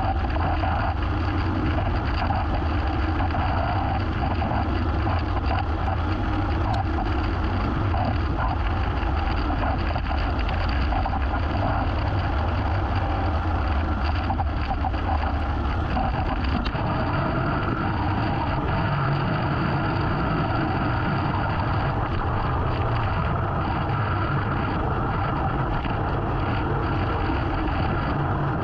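Small gasoline engine of yard equipment running steadily. A little past halfway through, its low note shifts slightly higher.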